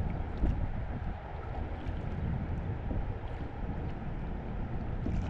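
Kayak being paddled on a canal: paddle splashes and water sounds under a steady low rumble of wind on the microphone.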